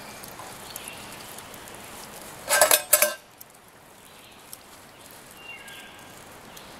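Two quick bursts of metal clinking from camp pots and cups about two and a half seconds in, with quiet handling sounds while washing up around them.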